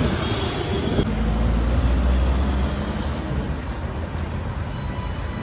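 Street traffic: a motor vehicle's engine runs close by with a low rumble, loudest from about one to three seconds in, over a steady haze of street noise.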